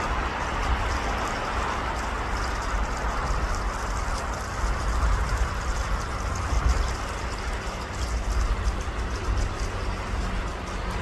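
Steady rush of flowing water, with a low rumble of wind underneath.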